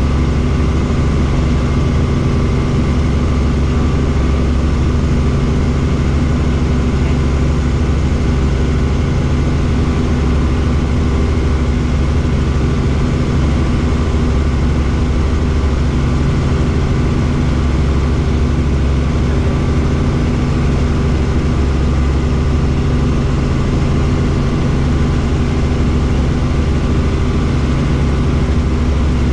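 Helicopter engine and rotor noise heard inside the cabin in flight: a loud, steady drone with several even low hums layered over a broad rushing noise.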